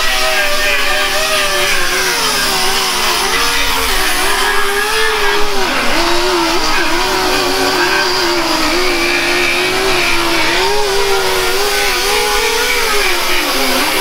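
Air-powered die grinders with abrasive discs grinding paint off a truck's steel body, their whine wavering up and down in pitch and dipping briefly a few times as the discs bear on the metal.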